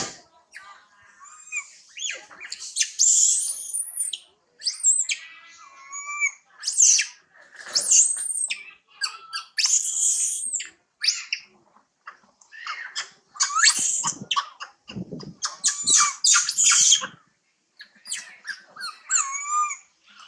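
Macaques screaming and squealing in a run of short, high-pitched calls whose pitch bends up and down. The calls come in clusters, with a few brief pauses.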